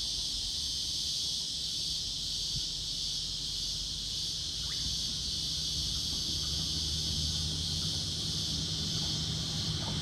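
Steady high-pitched drone of a cicada chorus. Under it, the low rumble of an approaching Sydney Trains H-set (OSCAR) double-deck electric train grows through the second half.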